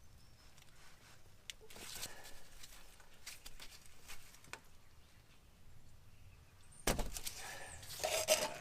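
Scattered metal clicks and knocks of a wrench working a rusted transmission cooler line fitting loose, with a louder clunk about seven seconds in.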